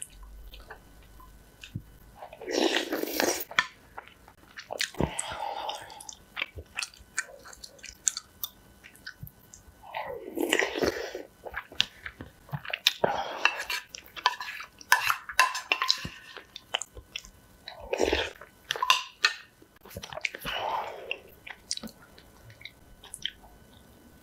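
Close-miked eating of spicy instant noodles in red soup: chewing and slurping, with a longer noisy slurp every few seconds. Chopsticks and a spoon click against the bowl in between.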